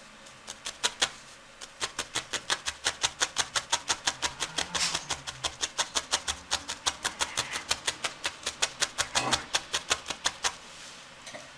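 Felting needle stabbing over and over through wool into a foam sponge as an ear is felted onto a wool cat's head: a fast run of crisp pokes, about six a second, with a brief pause about a second in. The pokes stop shortly before the end.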